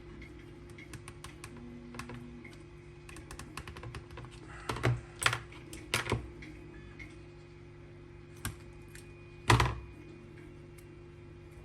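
Small hand tools clicking and snapping at a workbench as a wire is trimmed with cutters: a run of light clicks, a cluster of sharp snaps about five to six seconds in, and one loudest knock near the end.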